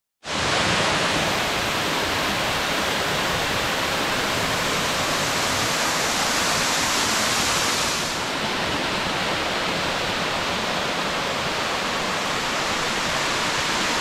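Steady rush of water pouring down a waterfall, a continuous even roar that starts after a brief dropout and eases a little about eight seconds in.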